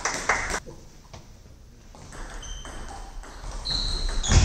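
Table tennis rally: a celluloid-type ball struck by rubber-faced bats and bouncing on the table, with a hard hit near the end.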